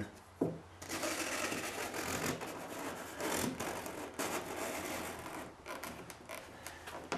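Edge of a cardboard template rubbing and scraping as it is swept across a boat hull and plywood patch. The scraping runs for several seconds and ends in a few light taps.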